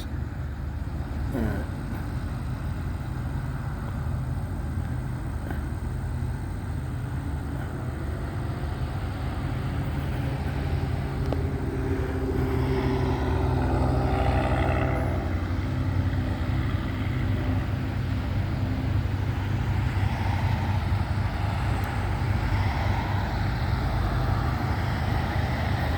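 Low, steady diesel rumble of a slowly approaching Florida East Coast freight train's locomotives, growing louder from about halfway through.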